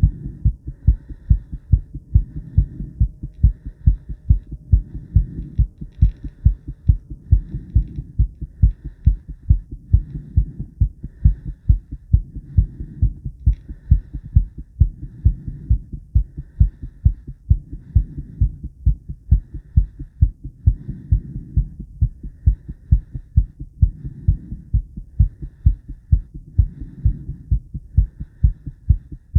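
A woman's heartbeat, recorded close up: a steady, even run of low beats that swell and fade every couple of seconds.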